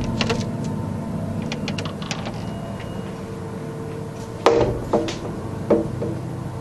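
A steady low drone made of several held tones, the unexplained night-time noise that the uploader likens to an airplane. Several sharp knocks or clicks sound over it, the loudest about four and a half seconds in.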